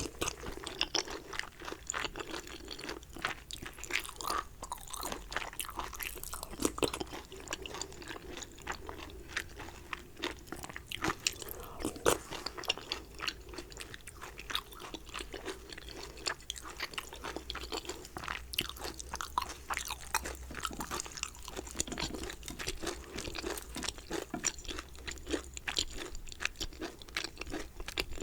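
Close-miked chewing and biting of dumplings: a dense, continuous run of wet mouth clicks and small crunches.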